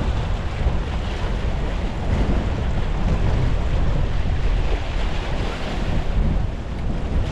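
Strong wind buffeting the microphone: a steady, loud noise heaviest in the low end, with no break.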